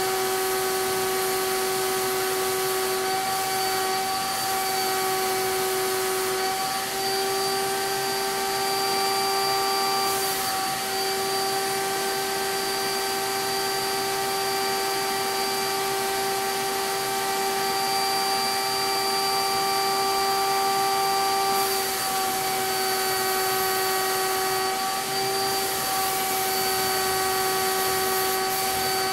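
CAPSpray HVLP turbine sprayer running with a steady high whine over a rush of air. Its pitch shifts slightly a few times.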